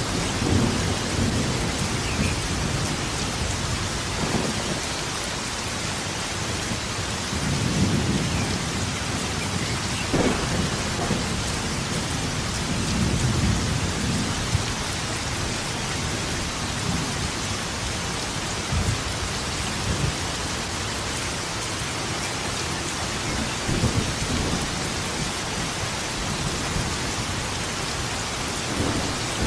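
Thunderstorm: steady heavy rain with low rolls of thunder swelling up several times.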